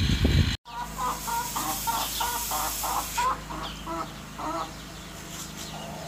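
A chicken clucking in a quick run of about a dozen short clucks, then a few more spaced out, over a low steady hum. It is cut in sharply just after a brief stretch of engine and wind noise.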